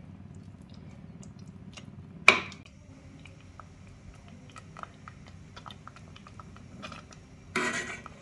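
Thick sweet pongal of rice, lentils and melted jaggery bubbling on low flame in a stainless steel pot: scattered small pops and plops over a low steady rumble. A little over two seconds in a steel ladle knocks sharply on the pot, and near the end there is a short scraping rush as the ladle goes back into the pongal.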